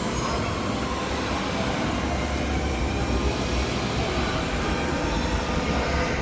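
Steady mechanical rumble of running machinery, with a faint constant hum.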